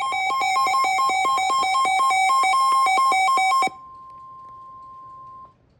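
Electronic emergency alert tones opening a flash flood warning. First comes rapid beeping that hops between two pitches, about seven beeps a second. Then, about 3.7 seconds in, a single steady, quieter alert tone of the weather-radio kind sounds for almost two seconds and cuts off.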